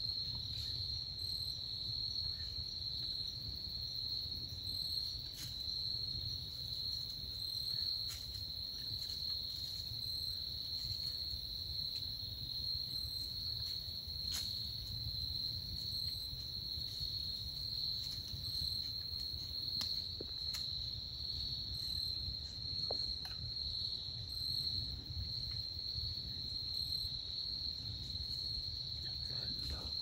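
Crickets trilling in a steady, unbroken chorus, with a fainter, higher insect call pulsing about every two seconds. Under them are a low rumble and a few faint, scattered clicks.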